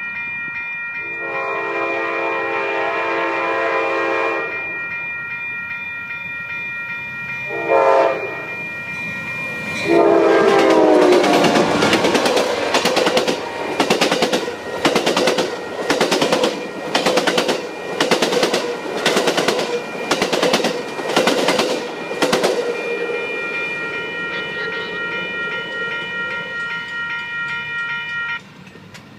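Amtrak Coast Starlight passenger train sounding its horn as it passes at speed: a long blast, a short blast, then a long blast that drops in pitch as the locomotive goes by. The cars then rush past with a regular beat of wheels over the rail about once a second, and steady high ringing underneath stops near the end.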